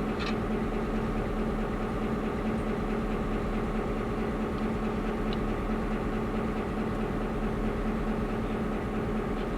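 Diesel locomotive engine running steadily: a constant low drone with a hum, and a faint click just after the start.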